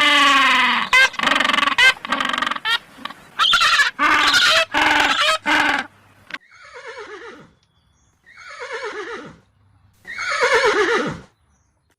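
Horse neighing: a run of loud, pulsing whinnies, then three separate calls that fall in pitch, with short pauses between them.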